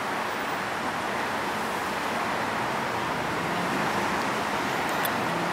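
Steady road traffic noise: an even hiss of cars passing on a nearby street.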